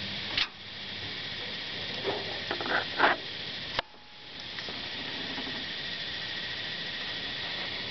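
Small knocks and rattles of hands handling the opened windshield washer pump's plastic gear and metal housing, clustered about two to three seconds in, with a sharp click just before four seconds, over a steady hiss.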